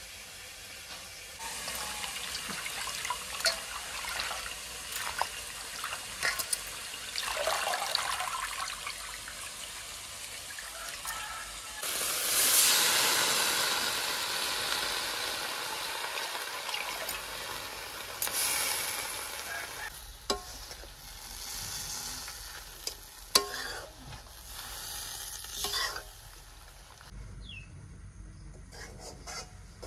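Fresh kudrum (roselle) leaves sizzling in hot oil in a wok, with a sudden loud rush of sizzling about twelve seconds in as more leaves go in, fading over several seconds. A metal spatula clicks and scrapes against the wok as the leaves are stirred.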